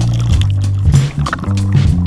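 Background music: a bass line that changes note every fraction of a second, with regular drum hits.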